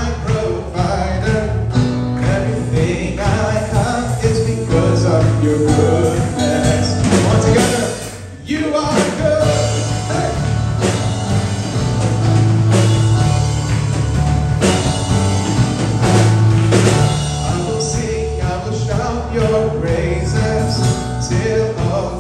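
Praise-and-worship band music with a strong, steady bass line; the sound dips briefly about eight seconds in before the full band comes back.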